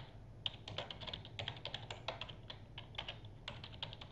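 Typing on a computer keyboard: quick, irregular runs of key clicks with brief pauses, over a low steady hum.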